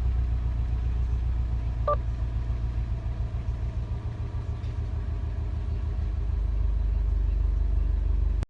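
Subaru WRX STI's 2.5-litre turbocharged flat-four running steadily at idle with a low, evenly pulsing rumble, on its newly replaced short block after spun rod bearings. A short chime sounds once about two seconds in.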